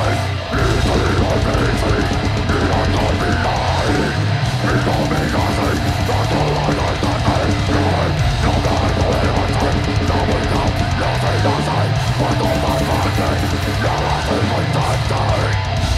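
Live heavy metal band playing loud: distorted electric guitars through Marshall amplifiers, bass and a pounding drum kit, with a brief break in the sound about half a second in.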